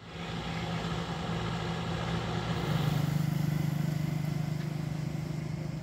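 A motor vehicle's engine running with a steady low hum. It grows louder about halfway through.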